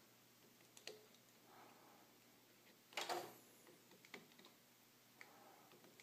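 Soldering work on a computer power supply's circuit board: faint, scattered small clicks and ticks of the soldering iron and board being handled, with one brief, louder noise about three seconds in.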